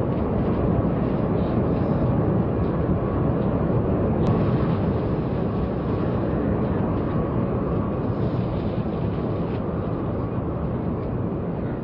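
High-speed train running at speed: a steady, even noise with no rise or fall.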